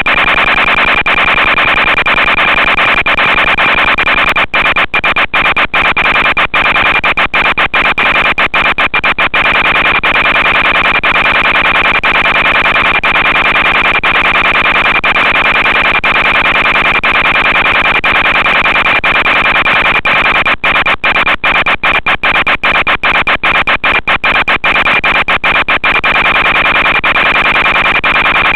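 Steady harsh buzz with a strong high whine from the audio channel of an analog FPV video downlink, broken by bursts of rapid brief dropouts as the signal fades.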